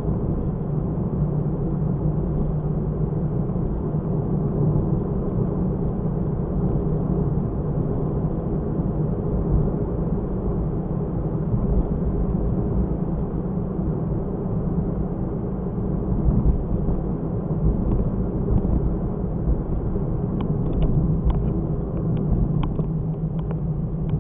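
Car driving, heard through a dashcam's microphone: a steady low rumble of engine and road noise. A run of light clicks comes in the last few seconds.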